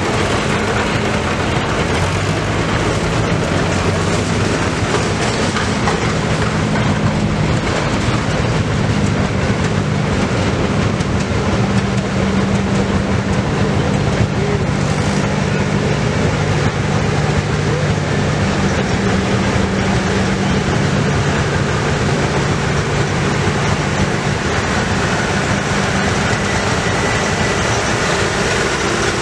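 Old tractor engines running, a steady low rumble and clatter with engine tones that shift to a new pitch every few seconds.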